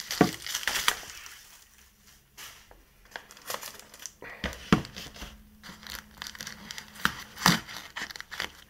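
Hands working at a cardboard parcel's brown packing tape, picking and tearing it open: irregular crinkling, scratching and tearing crackles, with a few sharper snaps.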